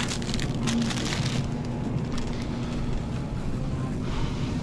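Plastic packaging of a bag of flatbread crinkling as it is handled and put into the cart, during the first second and a half. Under it, the steady rumble of a shopping cart's wheels rolling over a hard store floor.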